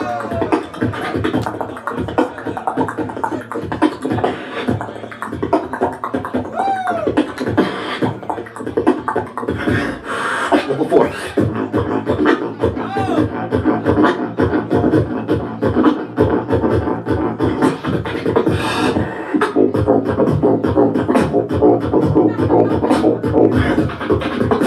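Solo beatboxing through a handheld microphone: a fast, dense run of mouth-made kick, snare and hi-hat sounds with a few gliding pitched vocal sweeps. The beat grows denser in the second half.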